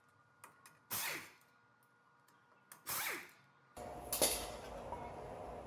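Cordless impact gun spinning off the 21 mm caliper bracket bolts: two short bursts about two seconds apart, each winding down with falling pitch. A sharp clack follows about four seconds in.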